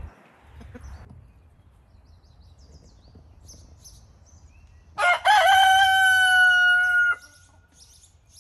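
A rooster crows once, a loud cock-a-doodle-doo of about two seconds starting about five seconds in, its last note held level and cut off sharply.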